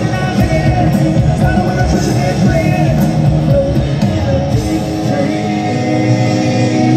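Live hard rock band playing loud, with electric guitars, bass and drums, heard from the audience.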